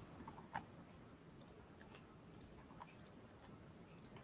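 Near silence broken by about four faint computer mouse clicks, each a quick double tick of press and release, spread over a few seconds.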